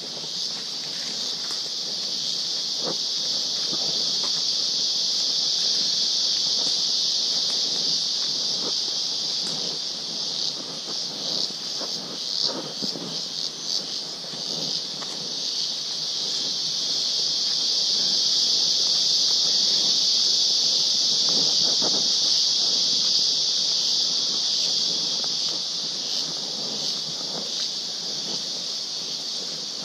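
Loud, steady high-pitched insect buzzing that swells and fades, stuttering into rapid pulses for a few seconds in the middle. Faint footsteps on leaf litter underneath.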